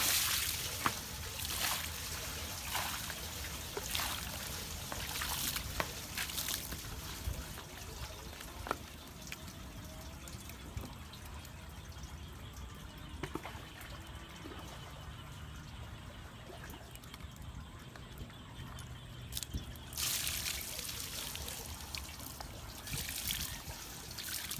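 Water poured from a bucket splashing and trickling over a large catfish lying on a wooden deck: pouring through the first several seconds and again near the end, with a quieter stretch between that holds a few small clicks.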